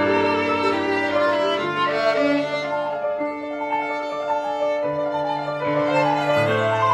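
Violin and grand piano playing a classical sonata together: the violin carries a melody in held notes over the piano's lower accompaniment.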